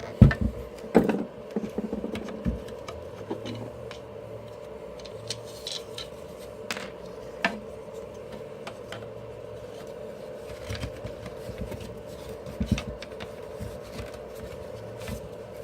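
Clicks, knocks and scraping of plastic parts being handled while an electric blower's housing and tail cover are fitted back together over the cord's strain relief. A few louder knocks come in the first three seconds and again near the end, over a steady hum.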